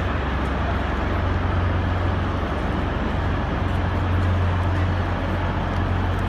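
Steady railway station concourse ambience: a constant low hum beneath an even din of the crowd moving about, with faint ticks of footsteps and suitcase wheels.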